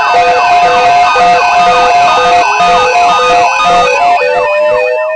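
Electronic emergency-alert siren sound: a steady tone with pulsing on-off tones layered over fast, repeating up-and-down yelping sweeps. A slow rising tone joins about halfway through.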